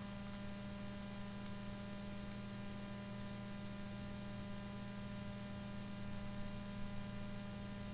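Steady electrical mains hum with many evenly spaced overtones, strongest low down, unchanging throughout.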